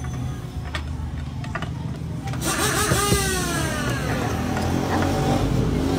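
A motor vehicle engine running with a steady low hum. About two and a half seconds in, the noise swells and a falling pitch sweeps past as traffic goes by, and the sound grows louder toward the end. A few light clicks of plastic parts being handled come in the first two seconds.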